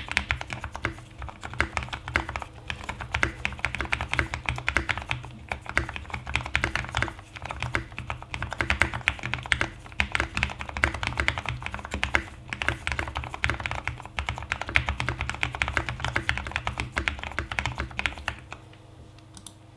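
Continuous fast typing on a custom Next Time 75 mechanical keyboard with lubed Cherry MX Brown switches and PBT XDA keycaps, the case tape-modded and foam-filled. The typing stops near the end.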